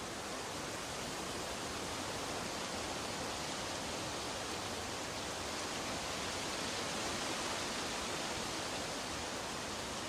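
A steady, even rushing noise that holds level throughout, with no separate events in it.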